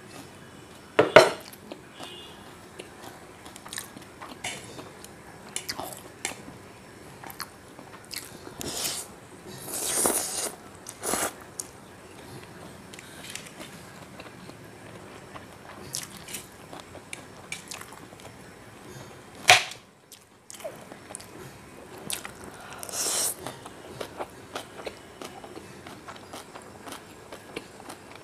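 Close-miked eating sounds: chewing and slurping of chow mein noodles, with scattered sharp clicks and a few longer hissy slurps.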